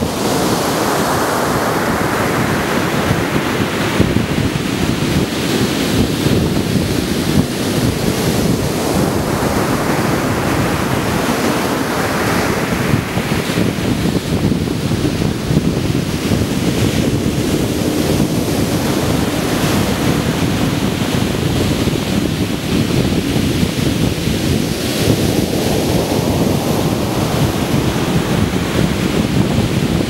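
Black Sea surf breaking onto a beach: a steady wash of water with a louder wave crashing and hissing up the shore about every twelve seconds.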